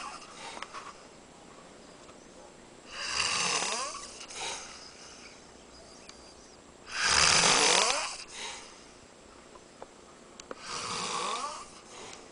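A man snoring, three long rattling snores about four seconds apart, the middle one loudest, each followed by a shorter, softer breath out.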